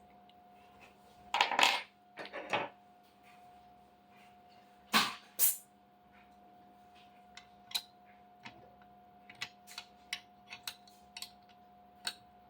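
Small metal parts and tools clinking and knocking as a CNC router's spindle mount is loosened and the spindle is worked into its tight-fitting clamp: a few loud knocks, then a run of light scattered clicks.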